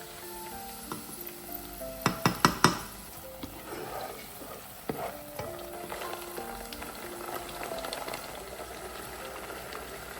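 Food sizzling in a frying pan as it is stirred, with a quick run of about five sharp knocks a couple of seconds in.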